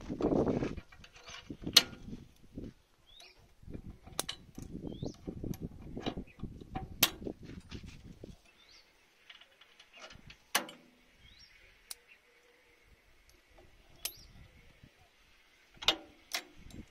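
Sharp metal clinks and knocks as steel hitch pins and linch pins on their chains are handled and fitted into a tractor's steel drawbar bracket, with rubbing handling noise between them. A few short bird chirps sound in the background.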